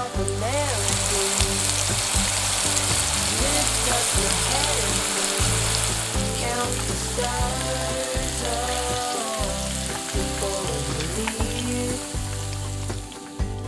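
Battered calamari deep-frying in a wok of hot oil: a steady sizzle.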